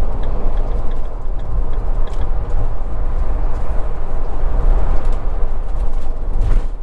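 Steady road and engine noise inside a motorhome cab cruising at motorway speed: a constant deep rumble with tyre and wind hiss over it.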